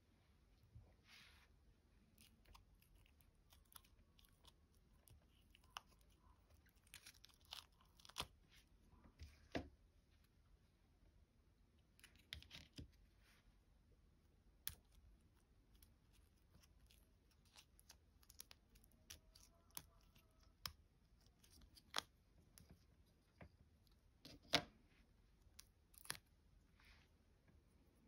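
Silicone molds being flexed and peeled off cast resin pieces: soft crackly peeling with scattered sharp clicks and taps as the hard pieces pop free and are handled.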